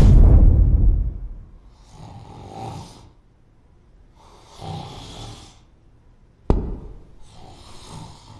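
A man's heavy breathing: a loud exhale at the start, then slower, quieter breaths about every two and a half seconds. A sharp click sounds about six and a half seconds in.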